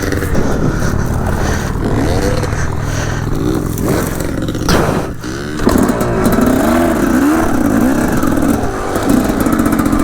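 Dirt bike engine revving up and down over and over as it is ridden, with a sharp knock about halfway through.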